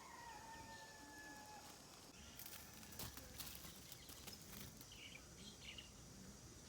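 Quiet garden ambience with a few faint bird chirps and some light clicks.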